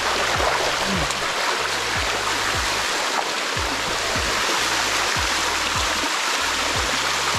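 Waterfall water rushing and splashing over rock in an even, steady hiss. Under it runs background music with a kick drum about twice a second and a bass line.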